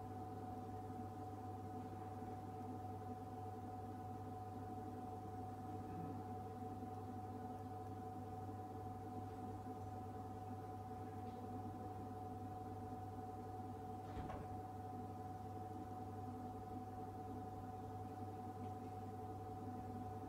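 Refrigerated drinks vending machine humming steadily: a low hum with several steady higher tones over it, and a faint click about fourteen seconds in.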